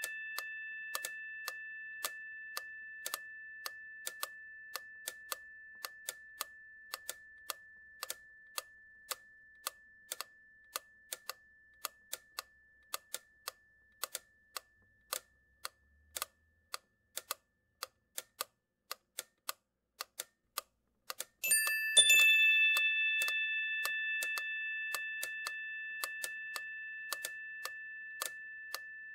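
A clock ticking steadily, about two ticks a second, under a bell tone that rings and slowly fades. About three quarters of the way through, the bell is struck again, sharply, and rings on, fading.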